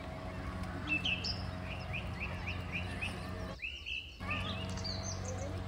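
Short, high bird chirps, with a quick run of about seven chirps in the middle, over a steady low hum.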